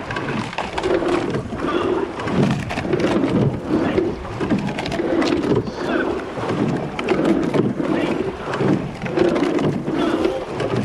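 Rowers of a racing eight breathing hard with voiced exhales, two to a stroke at about one stroke every two seconds, over steady wind and water rush.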